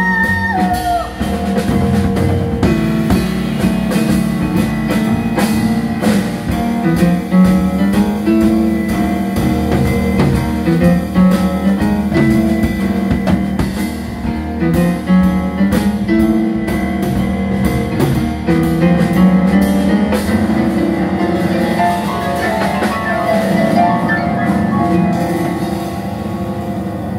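Piano trio playing: grand piano, plucked upright double bass and drum kit with cymbals.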